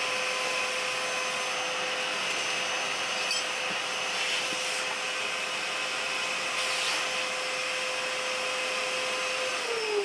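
A 2B 18-litre wet-and-dry shop vacuum running with a steady whine as its nozzle sucks up sawdust and debris from a workshop floor. Near the end the motor's pitch falls as it winds down.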